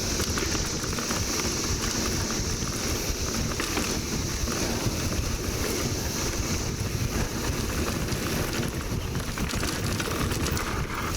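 Steady rushing noise of a mountain bike ride, with wind rumbling on the microphone, over a continuous high drone of a 17-year periodical cicada chorus.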